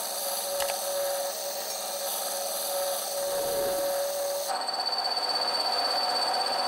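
Disc sander running while the edge of a plywood part is pressed against the spinning abrasive disc, a steady motor hum with a rubbing grind of sanding. The tone shifts about four and a half seconds in.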